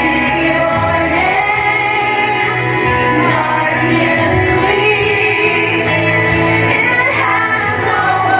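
Music with singing, led by a female voice over a steady bass accompaniment.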